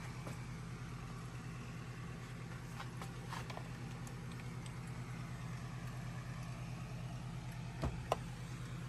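A steady low hum in the background, with a few faint clicks around the middle and two sharper taps near the end as a plastic model tank is handled.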